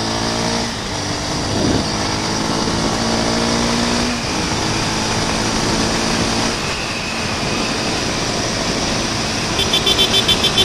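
Honda CB Twister 250F single-cylinder engine running while riding in traffic, with wind rushing over the microphone. The engine note shifts a couple of times along the way. Near the end comes a rapid, high-pitched pulsing beep or trill.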